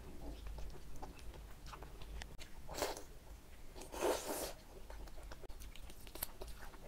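Quiet close-up eating sounds: soft mouth clicks and chewing as chicken curry and chicken feet are bitten and eaten by hand, with two louder wet mouth noises about three and four seconds in.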